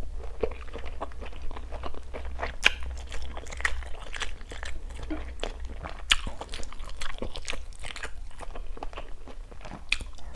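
Close-miked chewing: irregular wet mouth clicks and crunchy bites, ending with a bite into a crisp asparagus spear.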